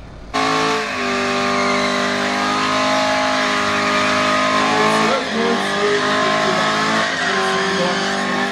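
Chevrolet Corvette C7's V8 with a Capristo exhaust, held at high revs in a burnout with the tyres spinning to warm them. It is a loud, steady note that starts suddenly. The revs dip briefly about five seconds in and again near seven seconds.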